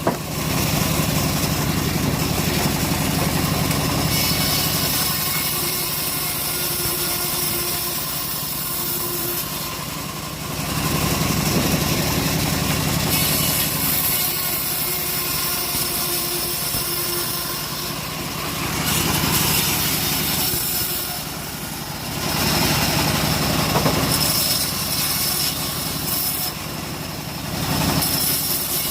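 Engine-driven sawmill running steadily while sawing through a teak log. The engine and the cutting noise swell louder several times as the blade works through the wood.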